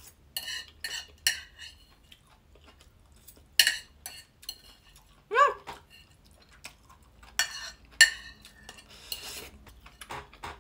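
Metal fork scraping and clinking against a plate in a series of separate strokes as the last food is scooped up, with a brief pitched squeal about halfway through.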